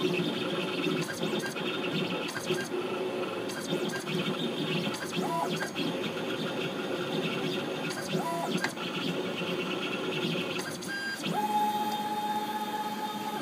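CNC engraving machine cutting a design into a shotgun receiver: a steady, scratchy mechanical grinding with its motors whirring, and a couple of brief motor tones along the way. About two seconds before the end, a steady higher whine starts as the machine moves its head.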